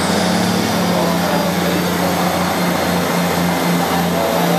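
Diesel engine of a Northern diesel passenger train running at the platform with a steady, even drone, the train standing ready to pull away.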